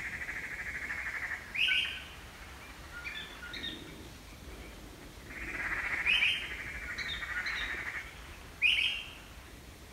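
Birds calling outdoors: a rapid trill twice, with short rising calls about three times and a few scattered chirps.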